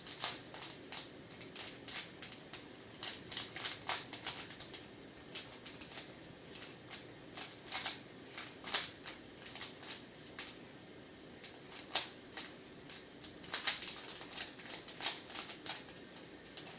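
3x3 Rubik's cube being turned fast by hand: the plastic layers click and clack in quick, irregular runs of several turns a second.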